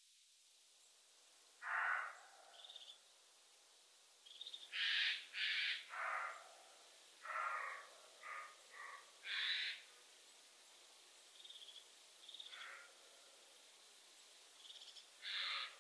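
Wild animal calls: about ten short, rough calls in irregular groups, a pair about five seconds in and a cluster soon after. Faint short high chirps of small birds come in between.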